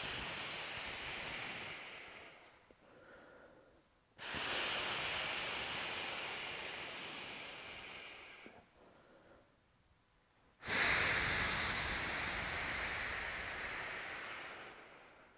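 Three long exhalations, each starting sharply and fading over about four seconds, with short quiet gaps between. This is breathing out with each repetition of a standing hip-abduction exercise while drawing in the core.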